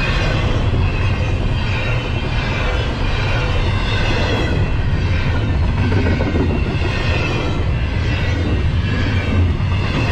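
Double-stack intermodal container well cars of a freight train rolling past: a steady rumble of steel wheels on the rails.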